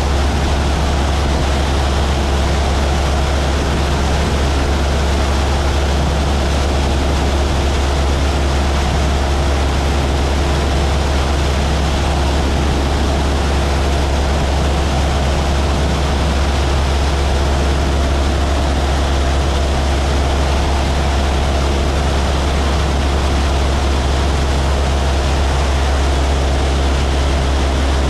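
Steady drone of a light propeller airplane's engine and propeller, heard from inside the cabin in flight: a strong, unbroken low hum with steady tones above it.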